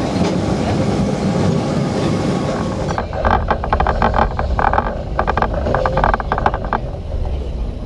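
Open-sided electric tram running on street rails, with a deep rumble and rapid metallic rattling and clattering of the car that is loudest from about three to seven seconds in.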